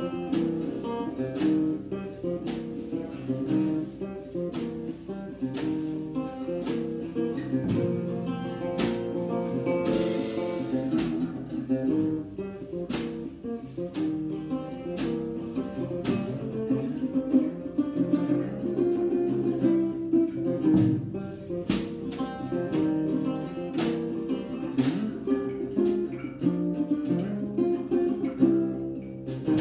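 A guitar is played live through a steady groove of picked and strummed notes, over a drum kit keeping a regular beat of sharp hits about once a second. A longer crash rings out about ten seconds in.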